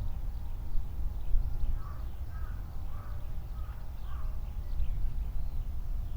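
Strong wind buffeting the microphone with a steady low rumble. A crow caws in a quick run of about five calls, from about two to four seconds in.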